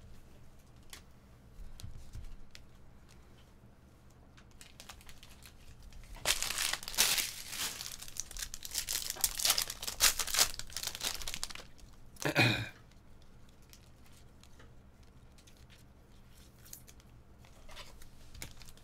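Foil trading-card pack wrappers being torn open and crinkled. There is a run of loud tearing and rustling from about a third of the way in, then a short pitched sound about two-thirds through, with light card handling before and after.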